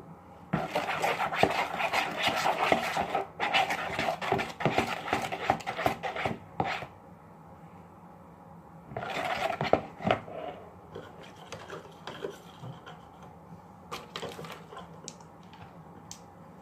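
A utensil scraping and clicking rapidly against a bowl as a glue slime mixture is stirred: a long spell of about six seconds, then a shorter one nearly ten seconds in, then only faint ticks.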